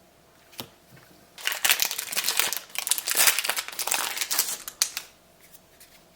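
A trading-card booster pack wrapper crinkling and tearing as it is opened by hand, a dense rustle of about three and a half seconds after a single small click.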